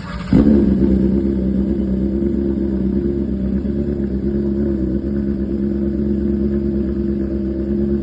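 Car engine: a sudden loud onset about a third of a second in, then the engine runs steadily.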